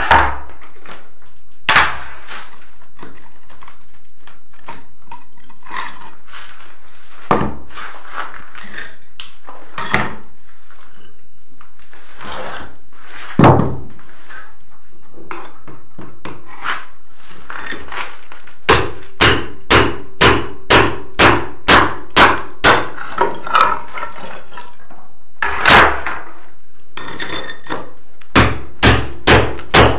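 Hammer striking a cold chisel to chip old ceramic tiles off the floor. Scattered single knocks at first, then steady runs of blows about two a second in the second half.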